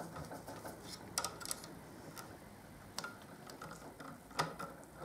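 Faint, scattered metallic clicks and ticks of a small steel tool wedged between the coils of a motorcycle fork spring, knocking against the spring and damper rod while the fork top cap is threaded on by hand. A few sharper clicks stand out, the loudest near the end.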